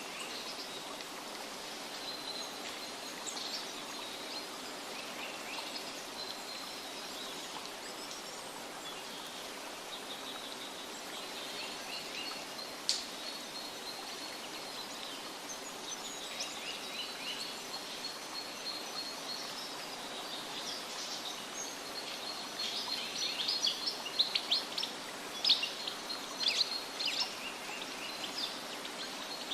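Birds chirping and calling over a steady hiss of running water. The chirping grows busier and louder near the end, and there is one sharp click about halfway through.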